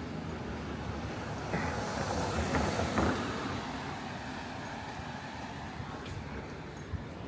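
Urban street noise with a vehicle passing, rising to its loudest about three seconds in and then fading away.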